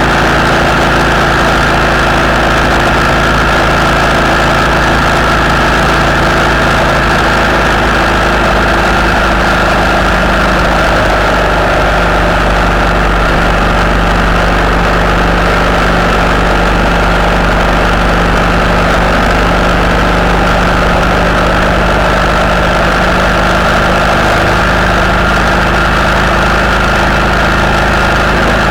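A vehicle's engine running steadily at motorway cruising speed, mixed with wind and road noise. The engine note shifts slightly a couple of times.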